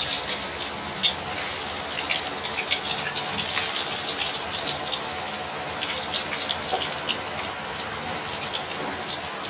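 Raw sweet potato chunks deep-frying in hot oil in a wok: a steady sizzle with dense crackling and popping. The freshly cut, undried pieces are boiling off their moisture in the oil.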